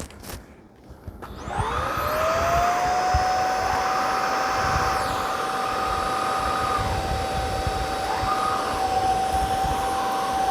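Eureka Elivate cordless stick vacuum's brushless motor switched on, spinning up with a rising whine about a second in, then running steadily with a high whistle.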